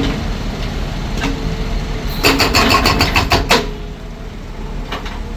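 Heavy machine's engine running steadily, with a quick run of about ten sharp knocks for about a second and a half in the middle.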